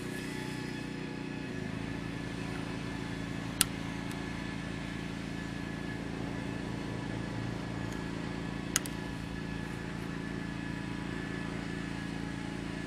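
A steady machine hum made of several fixed tones, with two sharp clicks, one about three and a half seconds in and one near nine seconds.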